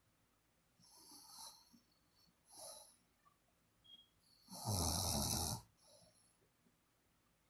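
Snoring in sleep: soft breaths, then one loud snore a little past halfway that lasts about a second, followed by a faint breath.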